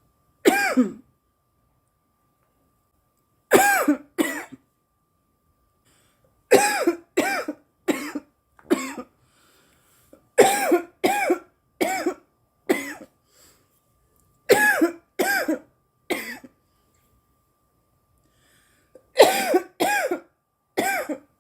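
A young woman coughing in repeated fits, each of two to four sharp coughs, with pauses of a second or two between fits.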